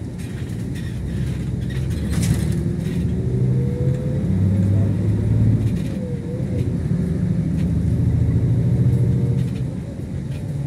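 Iveco Crossway Line Euro 6 bus heard from inside the passenger cabin: diesel engine and drivetrain pulling the bus along with a low rumble and a faint rising whine. It eases off briefly about six seconds in, pulls again, and eases off near the end.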